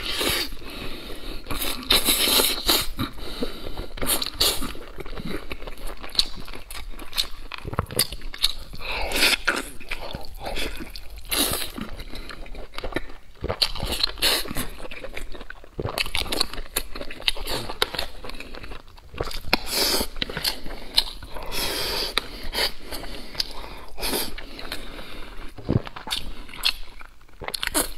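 Close-miked ASMR eating: a man biting into and chewing braised pork belly with rice, with irregular sharp bite and mouth noises following one another throughout.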